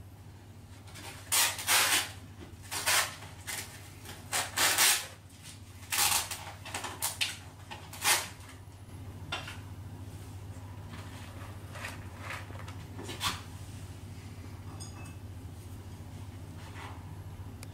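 Pet hedgehog rustling and scratching through loose wood-chip bedding: a run of short crunchy rustles over the first eight seconds or so, then only a few faint ones.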